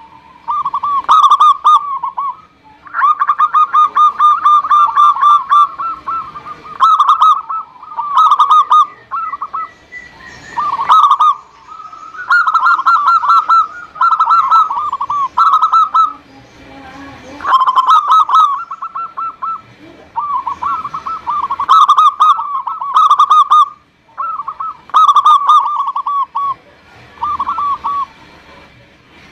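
Zebra dove (perkutut) cooing: phrases of rapid staccato pulses, each about a second long, repeated one after another with short pauses, with one longer run a few seconds in.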